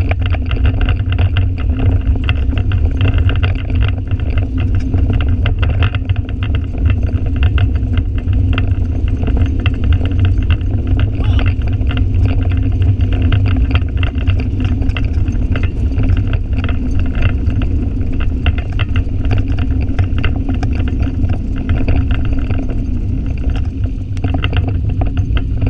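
Mountain bike rolling fast along a trail, heard from a bike-mounted action camera: a loud, steady rumble of wind buffeting the microphone and tyres on the trail surface, with constant small rattles and ticks.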